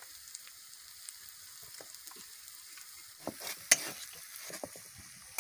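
Ground spices and onion-nut paste sizzling softly in oil in a metal karahi. About three seconds in, a spatula starts stirring and scraping around the pan, with one sharp scrape a little later.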